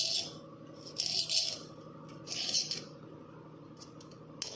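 Short metallic scraping strokes, about one every second and a quarter, as a steel tool is pressed along the tooth tips of a clock-spring-steel frame-saw blade. Working the tips from alternate sides raises an even burr on each side, so the saw does not drift in the cut.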